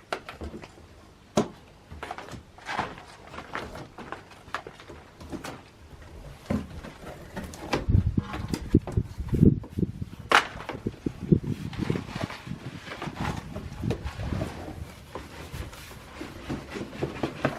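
A cardboard delivery box being opened and unpacked by hand: scattered clicks, rustling and knocks, with a cluster of heavier thumps about eight to twelve seconds in as the table legs inside are handled.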